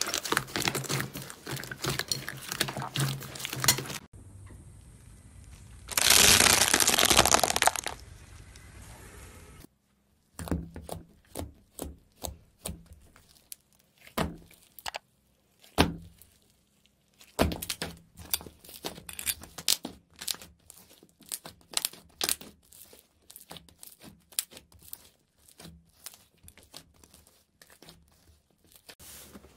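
Hands squeezing and pressing slime in a bowl: dense crackling at first, then many separate sharp clicks and pops. About six seconds in, a loud rushing noise lasts about two seconds.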